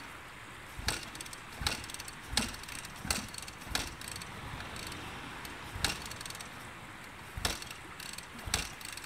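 Motocross bike being kick-started: about eight sharp clacks of the kick-start lever, roughly one a second with a pause midway, and the engine does not catch.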